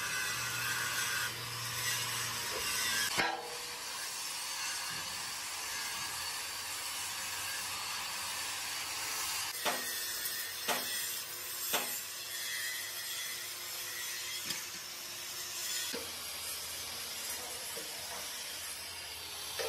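Steady rasping and rubbing of hand work on metal bodywork, broken by a few sharp knocks, three of them close together about ten to twelve seconds in.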